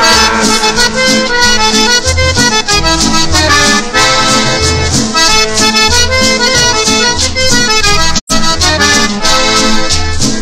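Accordion-led vallenato music played loud through a sonidero sound system, with a deep bass note pulsing about every second and a half. The music cuts out for an instant a little past eight seconds in.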